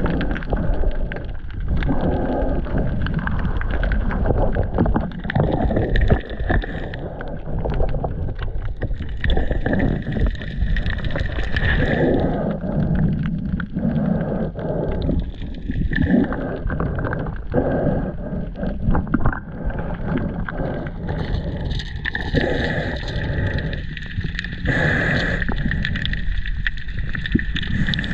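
Muffled underwater sound from a camera held in the sea: a dense low rumble of moving water, dotted with many small clicks and knocks.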